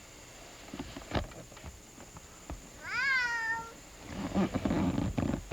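A cat meows once about three seconds in, a single call that rises and then falls in pitch. Low scuffling noise follows.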